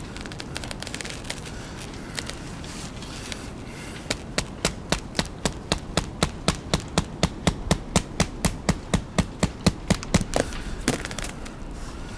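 A run of rapid, evenly spaced sharp knocks, about four a second, lasting some six seconds from about four seconds in, over a light rustling background.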